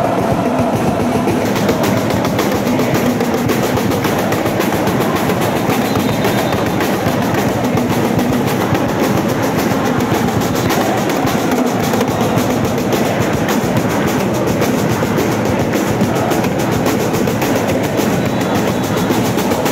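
A large crowd of student basketball supporters chanting together to a drum beat, with many hands clapping.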